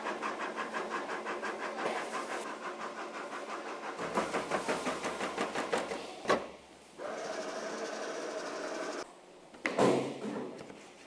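Industrial meat slicer running and cutting a frozen pork block, with a fast, even mechanical clatter of several strokes a second. A sharp click comes about six seconds in, then a steadier machine hum for a couple of seconds, and a heavy thump near the end.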